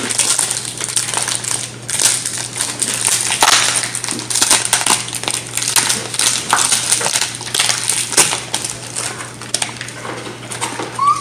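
Crinkly blue wrapper of an L.O.L. Surprise toy being crumpled and pulled apart by hand: a continuous, irregular crackling.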